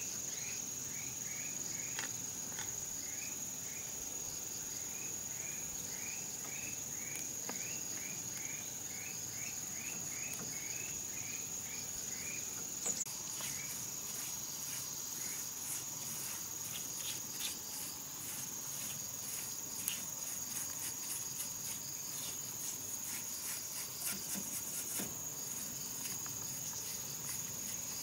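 Steady high-pitched insect drone. Through the first twelve seconds it comes with a run of short falling chirps, about two a second. In the second half, short scratchy sounds come and go over it.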